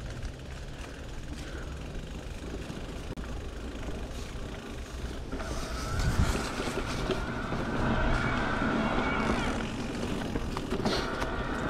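Electric mountain bike ridden over a dirt trail: rumble of wind and tyres with frequent clicks and rattles over rough ground. A motor whine comes in about halfway and fades a few seconds later.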